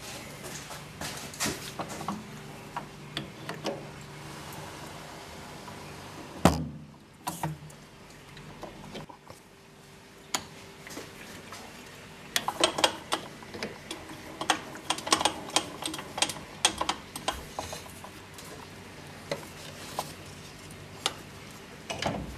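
Metal tools clinking and clicking as a threading die in its holder is handled and fitted around a workpiece at a metal lathe, with one louder knock about six seconds in and bursts of quick clinks about halfway through. A steady low hum runs underneath.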